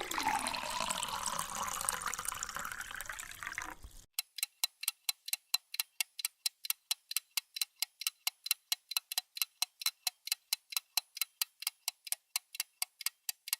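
About four seconds of rushing, water-like noise that starts suddenly and then cuts off. It is followed by a clock ticking evenly and fast, about four ticks a second.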